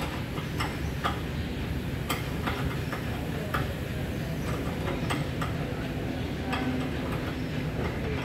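Auto repair shop ambience: a steady low hum with sharp clicks and clinks of metal, like hand tools, at irregular intervals about once or twice a second.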